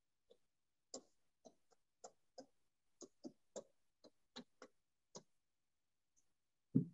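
Faint, irregular clicks of writing on an interactive touchscreen board, about a dozen short taps as figures are written on the screen. A louder low thump comes just before the end.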